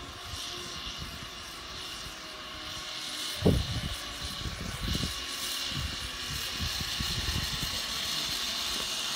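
Zipline trolley pulleys running along the steel cable, a steady whir that grows slowly louder as the rider approaches. Low gusty rumbles come and go underneath, the loudest about three and a half seconds in.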